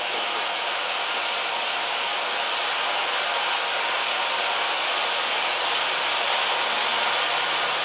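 Blackboxx "Silver Flower" 12-inch silver firework fountain burning, giving a steady, even hiss of spraying sparks.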